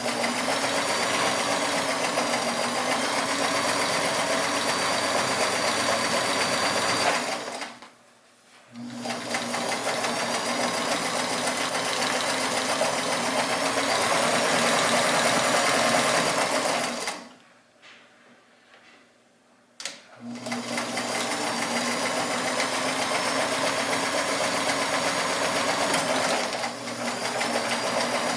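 Kenmore 158.14100 all-metal sewing machine running at speed and stitching, in three long runs with two stops: a short one about seven seconds in, and a longer one from about seventeen to twenty seconds.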